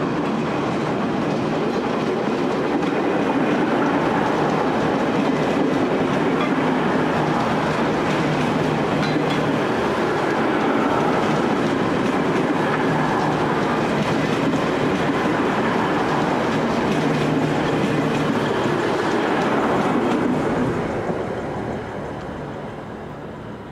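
Two coupled V/Line VLocity diesel railcar sets passing close by: a loud steady sound of underfloor diesel engines and wheels running on the rails. It fades away in the last few seconds as the final car moves off.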